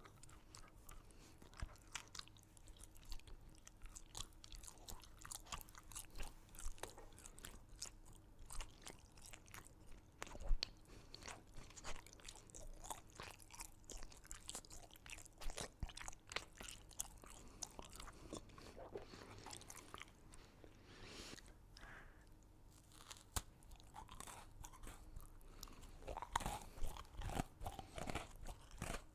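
Close-miked chewing and crunching of crunchy sweets, with sharp crunches throughout. There is one louder crunch about ten seconds in and a busier run of bites near the end.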